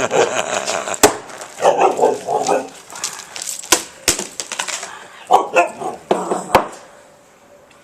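A dog barking and growling in short spells, with several sharp knocks in between, as something is struck and broken; it goes quiet near the end.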